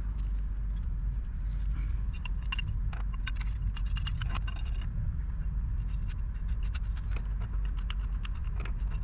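Pipe wrenches clinking and scraping on black steel gas pipe fittings as they are set onto the pipe, in two bursts of sharp metal clicks about two and six seconds in. A steady low rumble runs underneath.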